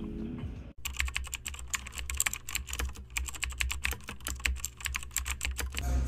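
Fast typing on a Lenovo ThinkPad laptop keyboard: a quick, irregular run of key clicks starting just under a second in and lasting about five seconds.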